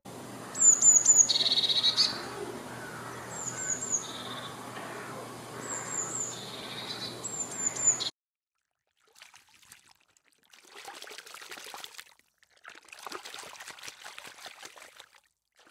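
Blue tit calling: several groups of three or four thin, high, downslurred notes, with a lower buzzing note between some of them. It stops suddenly about eight seconds in, and after a short silence there are three bouts of faint crackling.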